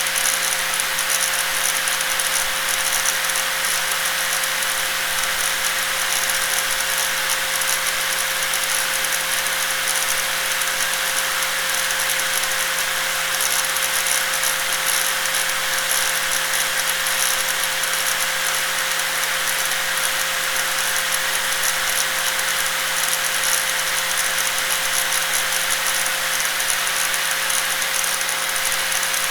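Electric angle grinder running continuously, a steady whine with a rattling hiss over it.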